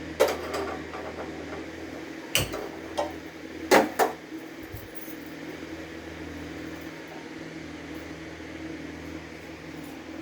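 Kitchen utensils and dishes clinking and knocking about five times in the first four seconds, over a steady mechanical hum like a fan or kitchen appliance.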